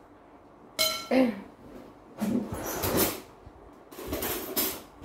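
Dishes and tableware clattering and clinking in a few short bursts, about two seconds in and again about four seconds in.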